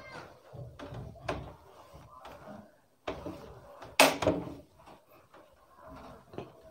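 Handheld eraser wiping a whiteboard in short, uneven strokes, with one sharp louder knock about four seconds in.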